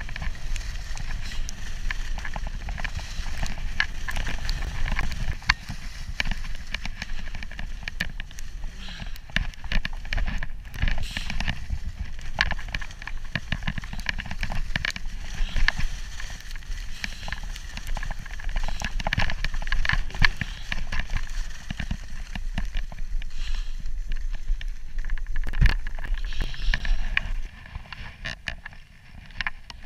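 Skis scraping and chattering over a tracked, packed-snow piste during a fast downhill run, with wind rumbling on the camera's microphone. The noise drops off sharply about two seconds before the end as the skier slows to a stop.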